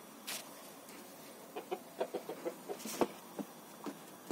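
Hen clucking: a quick run of short, soft clucks starting about a second and a half in. A couple of sharp knocks, one about three seconds in and one at the end, stand out over the clucks.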